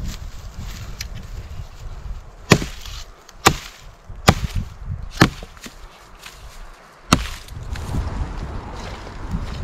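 Wood being chopped: five sharp strikes, about a second apart, with a longer pause before the last one.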